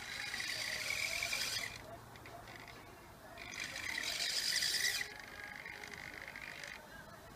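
Hobby servo motors in an RC CAT wheel loader whining through their gears as they move the loader arm. There are two louder runs of about a second and a half each, a short pause between them, then a quieter run that stops near the end.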